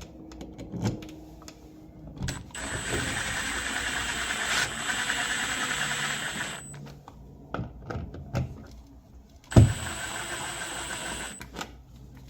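Cordless drill/driver whirring with a thin high whine in two runs, about four seconds and then under two seconds, as it drives the GFCI outlet's mounting screws into the electrical box. Light clicks and handling knocks in between, with a sharp knock just before the second run.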